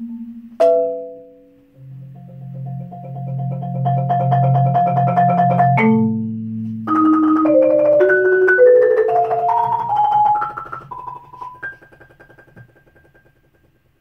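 Concert marimba played with four yarn mallets: a sharp accent just after the start, then notes held as rapid rolls, a low chord about six seconds in, and rolled notes climbing step by step to a last high note that rings and fades away near the end.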